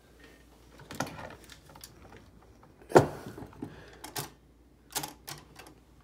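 Oliver typewriter mechanism being worked by hand: a few sharp metallic clicks and clacks, with one loud clack about three seconds in, as the ribbon vibrator linkage is tested after adjustment.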